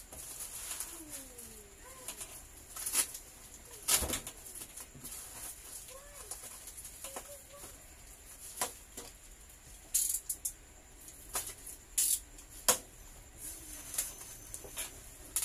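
Black plastic bag being pulled and torn off a cardboard box: irregular crinkling and sharp crackles, with several louder snaps spread through.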